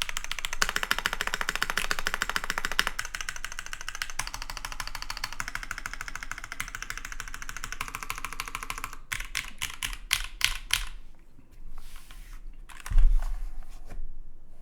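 Fast typing on a custom mechanical keyboard with lubed, filmed Cherry MX Teal frankenswitches (Hyperglide Black housings, Tealio stems) on an aluminum plate, under GMK keycaps. About nine seconds in the typing slows to a few separate keystrokes, and near the end there is one heavy thump.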